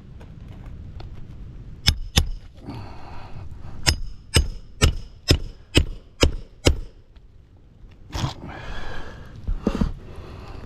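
Metal tool striking on an asphalt shingle roof: two sharp ringing blows, then a run of seven at about two a second, with scraping between them.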